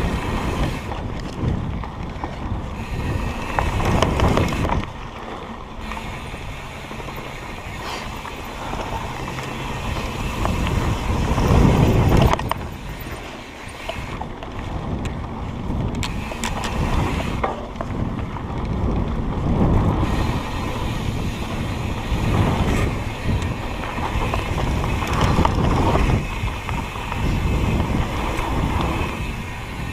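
Wind buffeting the microphone on a moving ride, with rolling and rattling noise from rough ground; it swells and eases in waves, loudest about twelve seconds in.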